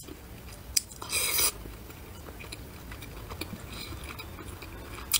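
A person eating close to the microphone: a bite with a short crunchy burst about a second in, then quiet chewing.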